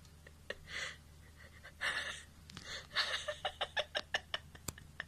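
A few short breathy puffs of noise, then a quick run of sharp clicks over about a second and a half: a kitten's claws tapping on a wooden floor as it hops sideways.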